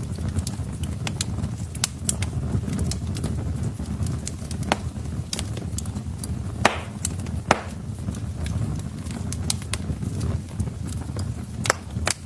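Wood fire crackling in a fireplace: a low steady rumble of burning logs with frequent sharp pops and snaps, two louder pops about seven seconds in.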